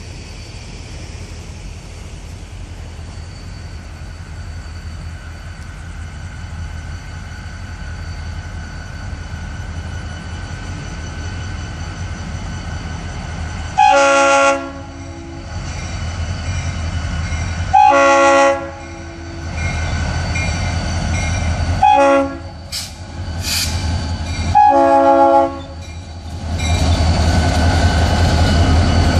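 A Florida East Coast diesel locomotive sounds its horn for a grade crossing in four blasts: long, long, short, long. Meanwhile the crossing bell rings steadily, and the rumble of the approaching diesel engine grows. Near the end the locomotive's engine gets much louder as it passes through the crossing.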